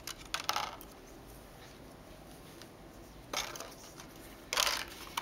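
Clear plastic and cardboard packaging being handled, rustling in a few short bursts, the loudest near the end.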